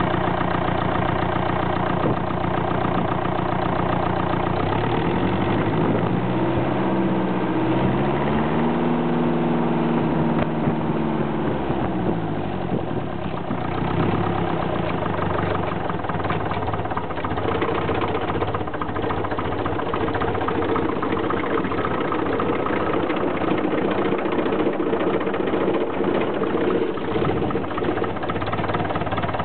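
Ferguson TEF-20 tractor's four-cylinder diesel engine running on cleaned injectors. It idles, is revved up about five seconds in and settles back to idle a few seconds later, then idles steadily.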